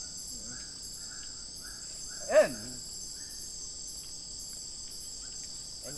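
Steady, high-pitched chorus of forest insects, with a short chirping call repeating about twice a second. A brief human vocal sound stands out about two seconds in.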